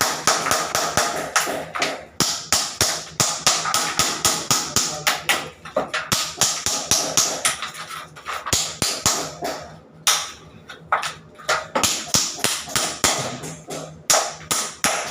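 Rapid, repeated sharp taps or knocks, about three to five a second, with short breaks about 2, 6 and 10 seconds in.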